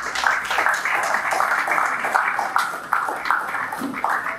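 Audience applauding, many hands clapping in a steady, dense patter that eases a little near the end.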